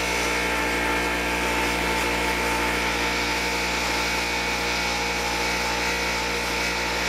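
Steady hum of a running electric motor, holding several fixed pitches without change.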